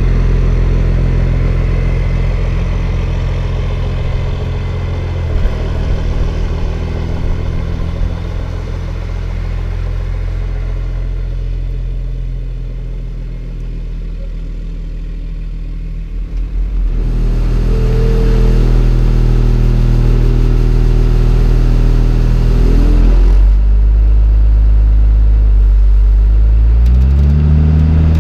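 The Travco motorhome's swapped-in 5.9 Cummins inline-six diesel pulls away, its steady drone fading over about fifteen seconds. Then, heard close from inside the cab, the diesel runs louder, and near the end its pitch climbs as it accelerates.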